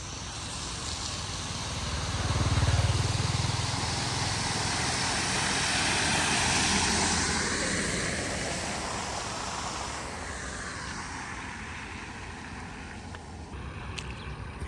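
A car driving through shallow floodwater passes close by: its engine and the hiss and swish of its tyres through the water rise, are loudest a few seconds in, then fade away.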